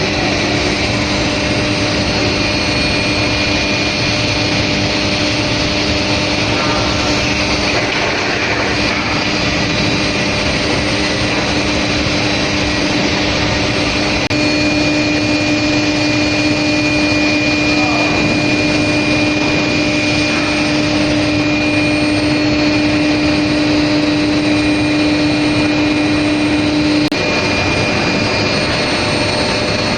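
Steel plate induction hardening machine running: a loud, steady hiss with a constant hum and a fainter high whine. The hum cuts off about 27 seconds in.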